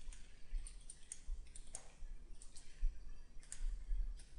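Computer mouse clicking, many short sharp clicks at irregular intervals.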